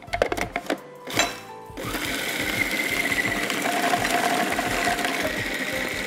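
A few clinks of small glass bowls, then about two seconds in a food processor starts and runs steadily, grinding a thick raw chicken, bread and spice mixture.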